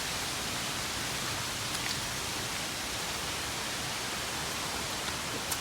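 Waterfall's falling water rushing steadily as an even, unbroken noise, with a couple of faint ticks.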